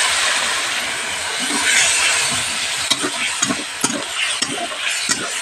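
Wet ground spice paste sizzling in hot oil and fried onions in a steel kadhai, a dense hiss that is strongest for the first two or three seconds. A spatula then scrapes and taps against the pan as the paste is stirred.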